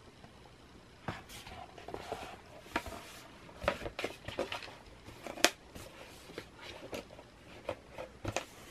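A cardboard folder being handled: scattered light taps and rustles as it is opened, closed and turned over, the sharpest tap about five and a half seconds in.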